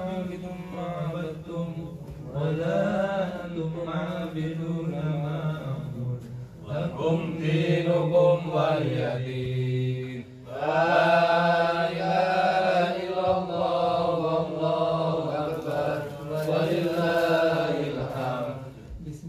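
A man chanting Quran recitation in Arabic, in long melodic phrases with drawn-out, wavering notes, pausing for breath about six and ten seconds in.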